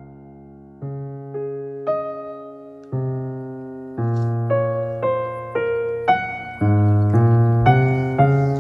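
Background keyboard music: gentle piano-like notes and chords, struck about once a second at first, then more often and louder in the second half, each fading away after it sounds.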